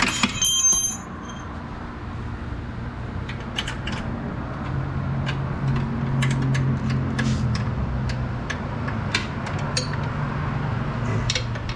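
Hand tools working on a bolt: a metal wrench clinks with a brief ringing at the start, then light irregular clicks and taps of metal on metal. A steady low hum runs underneath.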